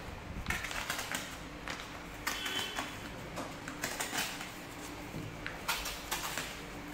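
Courier mailer packaging being slit open along its edge with a small hand tool: scratchy scraping and crinkling of the packaging in several short, irregular bursts.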